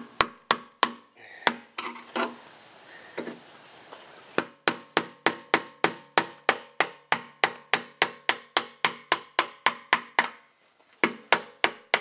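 Hammer striking a screwdriver against the rusty locking ring of the fuel pump sender on a steel truck fuel tank, driving the ring counterclockwise to loosen it, each blow ringing through the tank. A few scattered blows come first, then a steady run of about four a second from about a third of the way in, a short break, and more blows near the end.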